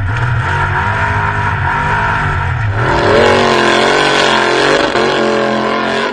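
Off-road vehicle engine running hard, its pitch rising and falling as the throttle is worked, more unsteady from about halfway through, then cut off abruptly.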